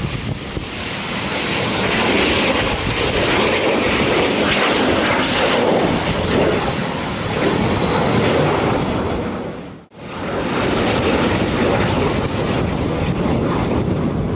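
Three K-8 jet trainers taking off in formation, their jet engines at full power: a loud steady rush with a faint high whine on top, swelling in the first two seconds. The sound cuts out sharply for an instant about ten seconds in, then carries on the same.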